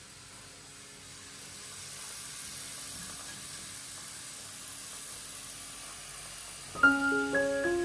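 A steady soft hiss that swells a little after a second or so, with faint sustained tones beneath it. Bright mallet-percussion music starts abruptly near the end.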